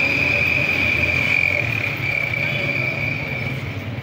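Street ambience: a low rumble of vehicle engines and traffic under a steady high-pitched whine that fades out near the end.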